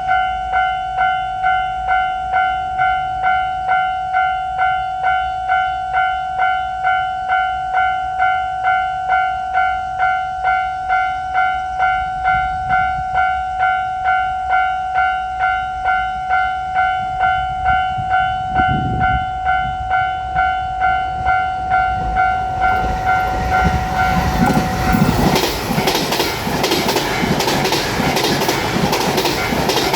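Japanese level-crossing bell ringing steadily, about one and a half dings a second. From about 23 s in, a JR Shikoku 8600 series limited express electric train passes through the crossing, its noise rising loud and its wheels clacking rapidly over the rail joints while the bell keeps ringing.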